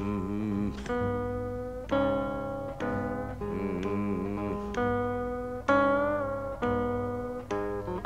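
Instrumental passage of a country-blues song on acoustic guitar, with picked and strummed chords struck about once a second and some notes wavering in pitch.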